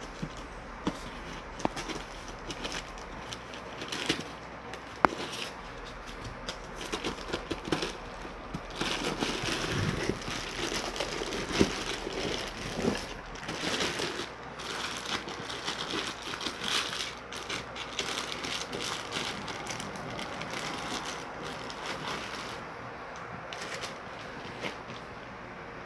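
Clear plastic bag crinkling and rustling as it is pulled and handled by hand, with cardboard box handling and scattered sharp clicks and knocks.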